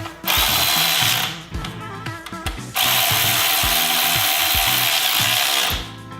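Power drill run in two bursts, about a second and then about three seconds, driving in the 8 mm bolts on a dirt bike being assembled. Background music with a steady beat plays underneath.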